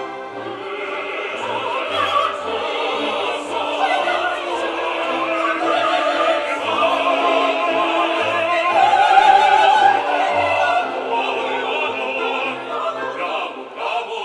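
Opera music: classical singing over an orchestra, with a long held note with vibrato about nine seconds in.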